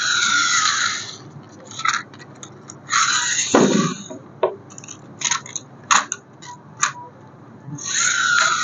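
Packaging being handled: three bursts of crinkling and scraping, sharp clicks between them, and a dull knock about three and a half seconds in.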